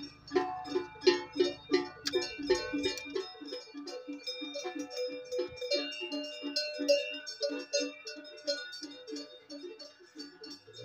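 Many cowbells of different pitches clanking together, several strokes a second, as a herd of cows walks past. A low hum underneath stops about three seconds in.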